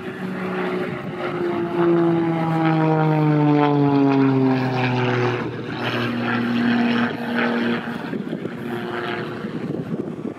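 Propeller airplane engine flying past. It gets loud about two seconds in, its pitch falls steadily as it passes, and then it settles into a fainter, steady drone.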